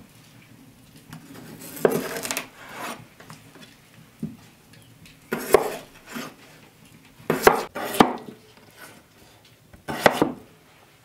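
Kitchen knife slicing raw red potatoes on a wooden cutting board: about five separate cuts a couple of seconds apart, each ending in a knock of the blade on the wood.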